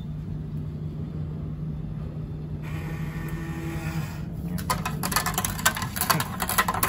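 Coin-operated vending machine dispensing change: coins clatter rapidly into the change tray from about four and a half seconds in. Before that a short whirring motor runs for about a second and a half, over the machine's steady low hum.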